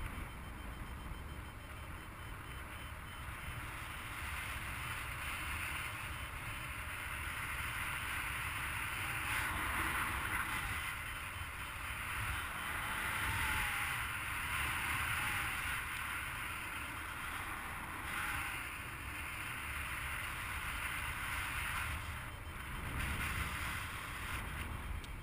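Wind rushing over the microphone of a camera mounted on a flying paraglider pilot's harness, a steady rumble that swells and eases as the glider circles.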